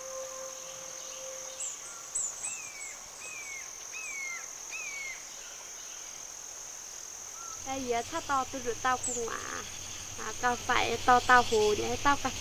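Countryside ambience: a steady high-pitched insect drone, with a bird repeating a short down-slurred chirp four times between about two and five seconds in.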